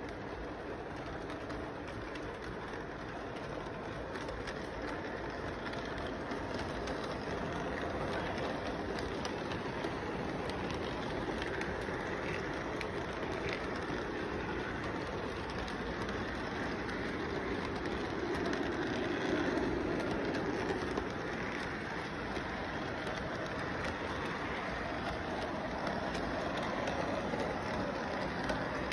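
Model freight train running on its track, a steady rumbling hum of wheels and motor that swells briefly about two-thirds of the way through.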